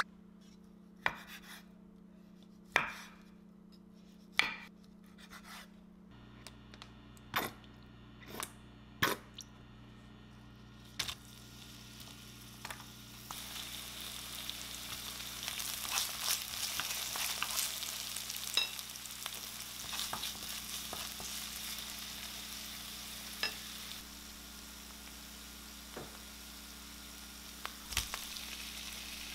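A few separate knocks and taps of kitchen work, then from about twelve seconds in green onion and garlic sizzling in oil in a frying pan, louder for a few seconds after minced garlic goes in. Near the end a knock as scallops are tipped into the pan, and the sizzling carries on.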